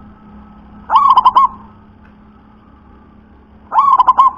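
Zebra dove (perkutut) cooing: two phrases, one about a second in and one near the end, each a rising opening note followed by a quick run of short coos.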